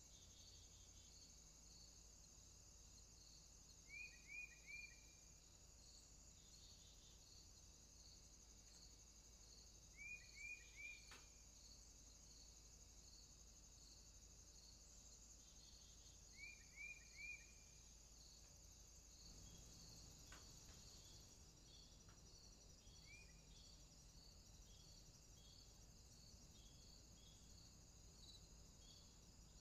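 Faint insect chirring, cricket-like, pulsing about twice a second. A bird gives quick bursts of three short chirps about every six seconds, three times, then a single chirp.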